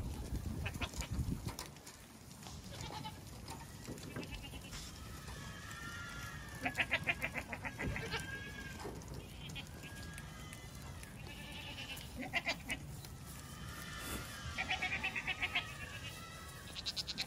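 Goat kids bleating, several wavering bleats one after another from different animals, the loudest about a third of the way in and near the end.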